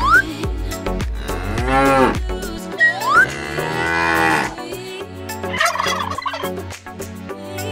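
A cow mooing once, a long call about a second and a half in, over background music. A rising whistle-like sweep sounds at the start and again about three seconds in, followed by a rough, noisy sound.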